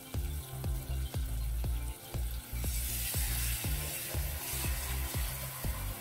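Tomato, onion and chili sauce sizzling and bubbling in a nonstick wok, the sizzle growing louder about two and a half seconds in. Background music with a steady beat plays under it.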